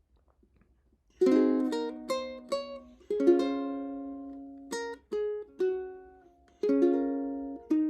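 A solo plucked string instrument playing a slow instrumental introduction. After about a second of near silence, chords and single notes are plucked one after another, each ringing out and fading.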